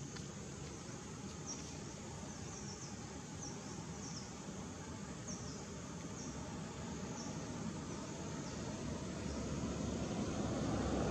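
Forest ambience: short, high chirps that fall in pitch repeat about once a second over a steady noisy background. The background grows louder toward the end.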